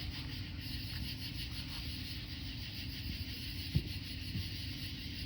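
Steady outdoor background noise: a low rumble under a high, faintly pulsing hiss, with a single faint knock about four seconds in.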